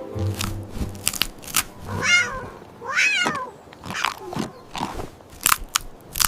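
A cat crunching candy, with sharp crunches throughout, and meowing twice, about two and three seconds in.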